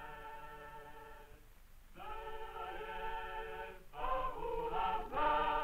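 Film soundtrack music: a choir singing slow, long held notes, with a short pause about one and a half seconds in.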